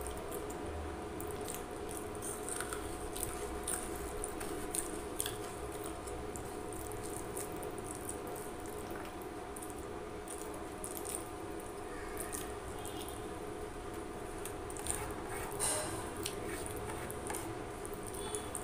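Fingers squishing and mashing rice mixed with potato curry against a plastic plate, with many small irregular clicks and soft squelches, over a steady hum.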